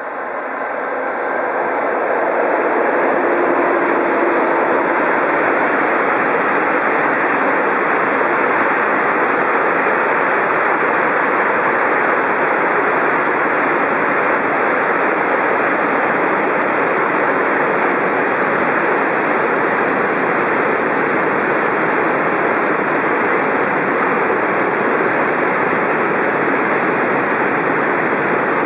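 Freight train of tank wagons passing close by. The noise builds over the first couple of seconds as the locomotive comes past, with a brief hum, then holds as a steady rolling rumble of the wagons' wheels on the rails.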